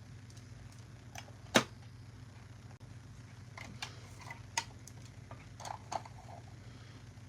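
Small plastic miniatures being handled: one sharp click about one and a half seconds in, then a run of lighter clicks and taps a few seconds later, over a steady low hum.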